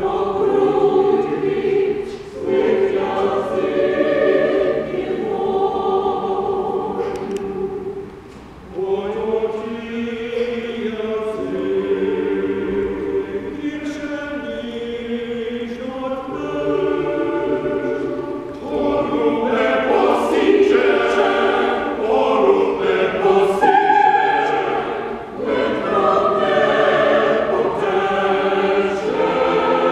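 Mixed choir of men's and women's voices singing a Ukrainian folk song a cappella in long, held chords, with a brief breath between phrases about eight seconds in.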